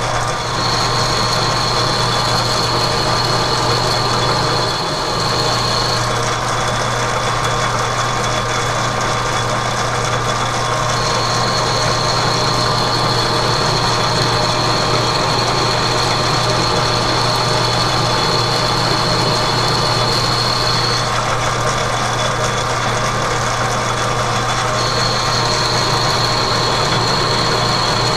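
Metal lathe running steadily with its chuck spinning while a boring bar plunge-cuts the bore of a heat-treated 4140 steel workpiece. A high steady whine comes and goes over the running machine in three long stretches of several seconds each.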